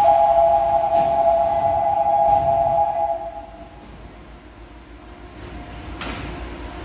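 Subway door-closing warning buzzer sounding a steady two-note tone for about three and a half seconds as the train and platform screen doors shut. After it stops, a low hum carries on from the stopped train, with a short hiss of air about six seconds in.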